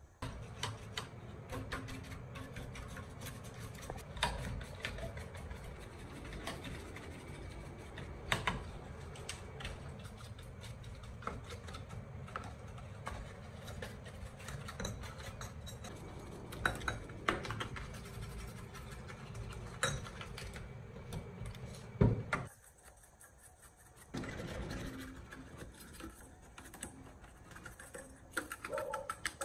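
A stiff brush scrubbing dirt and dust off an old TV circuit board: a steady scratchy rustle with scattered small clicks and knocks against the board. A sharp knock comes about three-quarters through, the scrubbing stops for about two seconds, then resumes.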